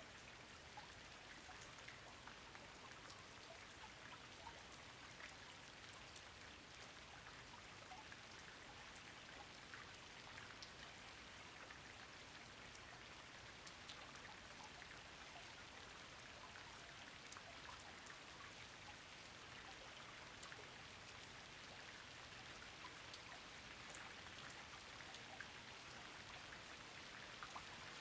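Soft, steady rain falling, with many small individual drops ticking through an even hiss.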